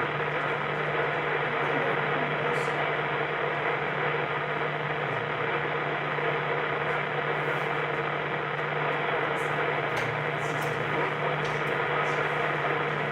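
Weather radio receiver putting out steady static hiss with a low hum underneath, with no voice coming through: the NOAA Weather Radio signal is too weak to be heard over the noise.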